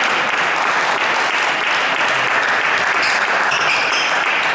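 Spectators applauding a won point in a table tennis match: steady, dense clapping.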